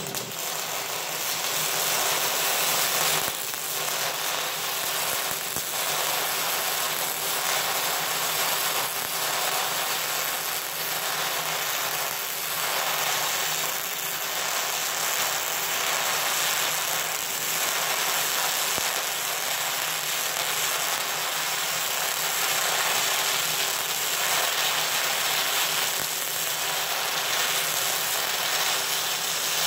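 MIG welding arc crackling steadily as one long, continuous bead is laid on a steel I-beam.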